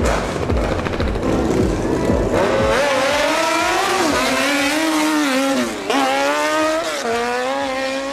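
A child imitating a motorcycle engine with his voice: a sputtering low buzz at first, then a long droning "vrum" that rises and falls in pitch like revving, broken twice by short breaths.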